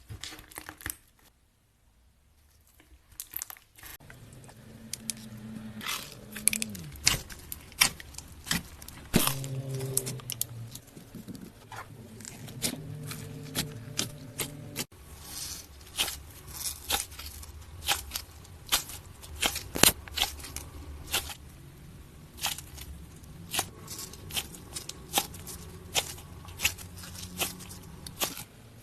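Slime being squeezed and stretched by hand, giving many sharp crackles and pops, sparse at first and then coming thick and fast from about four seconds in.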